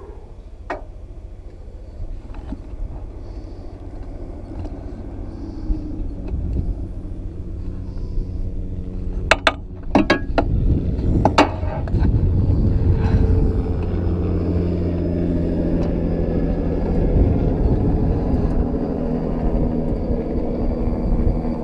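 A vehicle engine rumbling steadily, growing louder about halfway through, with a few sharp knocks just before it swells.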